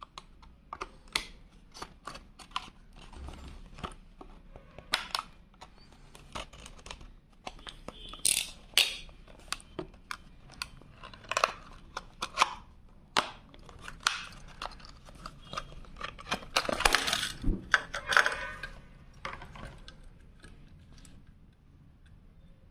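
Plastic blister and cardboard packaging of a Hot Wheels Premium car being handled and torn open: many sharp clicks and crinkles, with a longer stretch of crackling and tearing about two-thirds of the way through.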